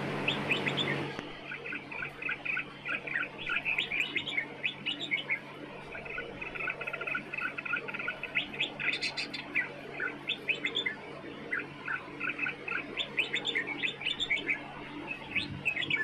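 Red-vented bulbuls chirping, a continuous run of short, quick calls from several birds.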